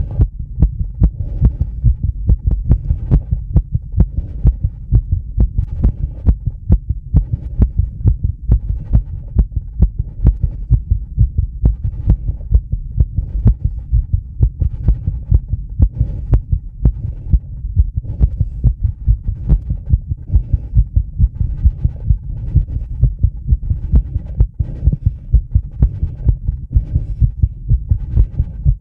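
Human heartbeat picked up by a microphone pressed to the chest: fast, regular beats at about two a second over a low steady rumble. The racing rate is tachycardia brought on by rebreathing the same air from a bag.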